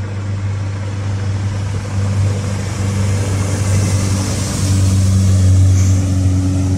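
Motorboat engine running at speed with a steady low drone, getting louder as the boat approaches, over the hiss of its spray wake.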